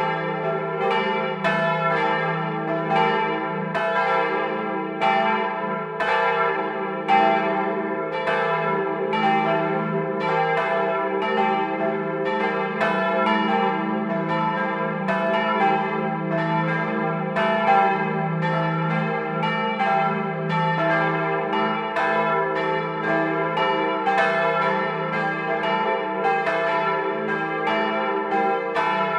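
Church bells cast in 1951 by the Otto foundry of Hemelingen, swinging under electric ringing and heard close up inside the bell tower. Strikes overlap at roughly two a second over a steady, sustained hum.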